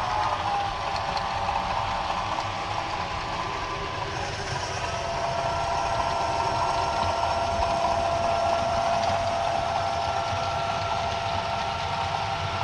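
SoundTraxx Tsunami 2 sound decoder in an HO-scale EMD GP9 model locomotive, playing a steady diesel engine sound through the model's small speaker as it pulls a freight train. The engine note shifts about four seconds in.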